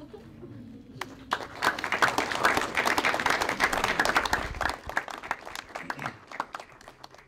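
Crowd of wedding guests applauding. The clapping swells about a second in and thins out near the end.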